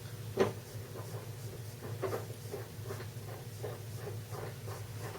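Metal clicks and small knocks of a chain breaker tool being handled and fitted onto a motorcycle drive chain, the sharpest click about half a second in, over a steady low hum.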